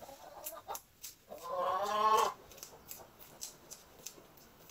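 Fresh corn kernels clicking and snapping off the cob as they are shelled by hand. About a second and a half in, a drawn-out animal call lasting about a second is the loudest sound.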